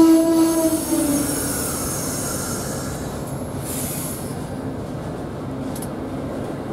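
Passenger train coaches rolling slowly past close by, the wheels and running gear giving a steady rumble. A sustained multi-tone squeal fades out within the first second, and there is a short hiss of air about four seconds in.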